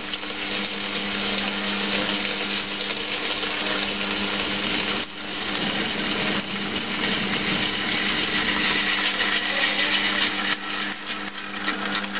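JET bench milling machine running, its small slitting saw cutting a slot through a cast-iron holder: a steady motor hum under a continuous cutting hiss, with a brief dip about five seconds in.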